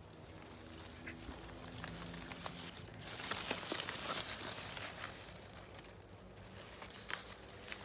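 Bean leaves and stems rustling and brushing against a handheld phone as it is pushed through the plants, with scattered light clicks; the rustling grows louder about three seconds in and again near the end.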